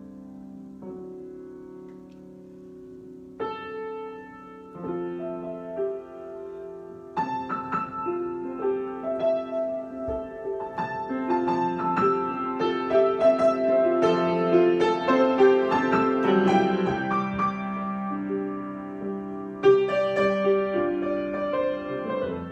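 Solo piano improvising: soft held chords at first, then more notes and louder playing from about seven seconds in, easing slightly near the end.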